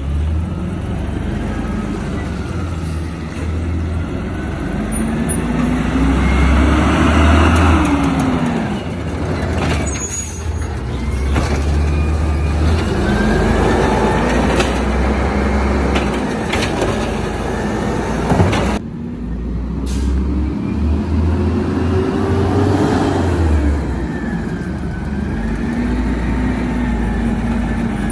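Automated side-loader garbage truck running, its engine revving up and down in long swells to drive the hydraulic arm as it lifts and dumps a cart, with a few sharp clanks and the hiss of air brakes.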